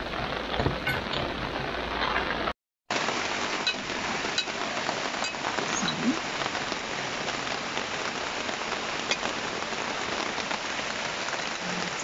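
Steady hiss of water, like rain on a surface, with scattered small drip-like ticks. A brief dropout to silence about two and a half seconds in marks a cut in the footage.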